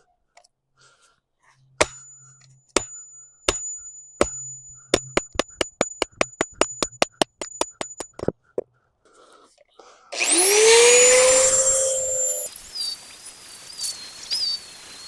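A run of sharp metallic strikes with a high ringing, a second apart at first and then coming several a second. A power tool's motor then spins up with a rising whine and runs loudly, dropping after a couple of seconds to a quieter grinding with a wavering tone.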